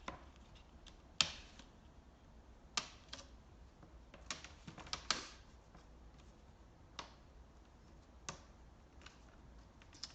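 Plastic retaining clips of a Lenovo ThinkPad T440p's screen bezel popping loose as the bezel is prised off by hand: a series of sharp plastic clicks at uneven intervals.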